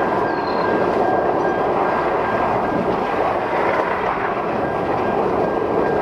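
Loud, steady rush of strong wind blowing across the microphone.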